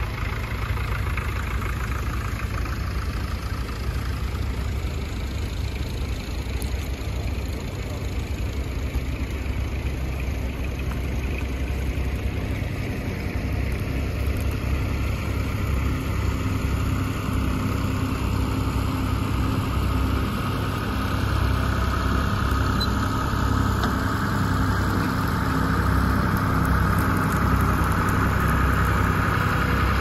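Vintage tractor engine running steadily while ploughing, with a whine coming in and the sound growing louder in the second half as the tractor comes closer.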